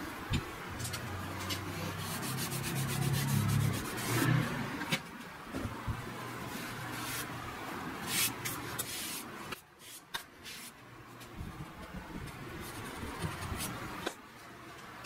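A hand rubbing over the stained wooden top of a step stool, with scattered light knocks and clicks. A low hum runs through the first four seconds or so.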